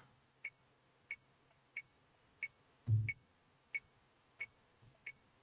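Metronome click ticking steadily at about one and a half clicks a second, the short bright ticks all alike. A brief low thud sounds about three seconds in.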